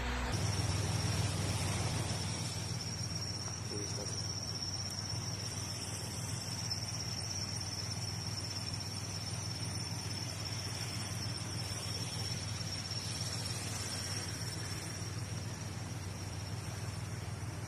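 A continuous, steady high-pitched whine, like an insect trill, over a low rumble.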